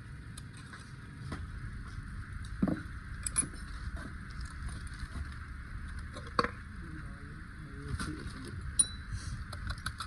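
Scattered metallic clinks and knocks of hand tools and engine parts being handled during an engine teardown, the sharpest knock about six seconds in, over a steady background hiss.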